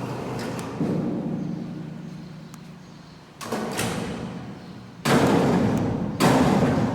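A string of sudden knocks or bangs in a workshop, each dying away over about a second. The first, about a second in, leaves a low hum; the last two, about five and six seconds in, are the loudest.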